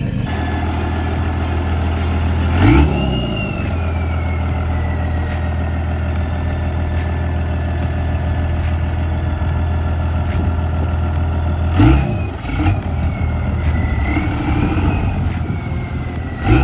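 A vehicle engine running at a steady low idle, with brief loud surges about three seconds in and again around twelve seconds in.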